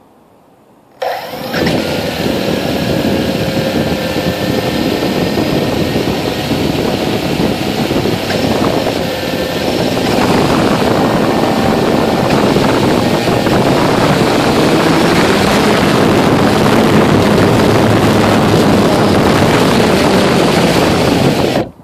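Blade 350 QX quadcopter's four brushless motors and propellers starting up suddenly about a second in and running with a loud, steady whir. About ten seconds in the sound turns louder and rougher as the throttle rises, then stops abruptly near the end.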